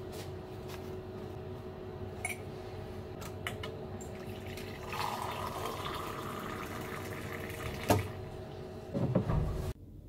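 Boiling-water tap running hot water into a mug for about three seconds, starting about five seconds in, over a steady hum. A few clicks come before it, and a sharp knock and loud handling noise follow near the end.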